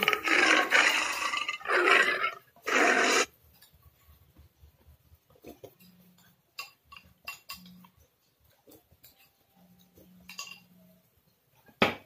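Loud slurping from a bowl held to the mouth, three times in the first few seconds, followed by quiet eating noises and light spoon clicks, and a sharp clink near the end as the bowl is set down on a plate.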